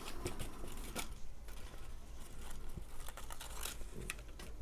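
Soft rustles and a few light clicks of cut cardstock pieces being handled on a crafting table, over a steady low hum.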